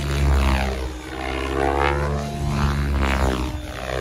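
GOOSKY RS7 electric RC helicopter flying 3D aerobatics: the buzz of its rotor rises and falls in pitch as it swoops through manoeuvres.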